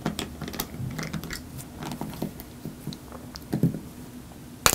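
Small clicks and taps of a precision screwdriver turning tiny screws out of a small plastic gadget case, then plastic parts being handled, with one sharp click near the end.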